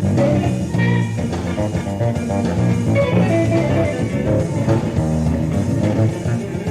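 Live electric bass guitar solo: a fast run of plucked notes mixed with chords and double-stops, mostly in the low and middle register.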